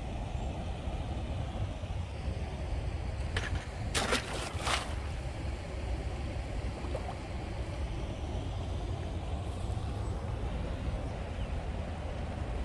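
Steady low wind rumble on the camera microphone, with a short burst of splashing about four seconds in, typical of a released largemouth bass kicking away into the water.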